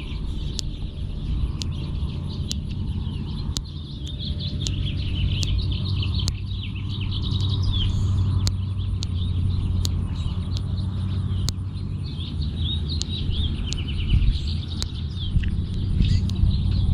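Birds chirping continuously over a low steady rumble, with a sharp click about once a second.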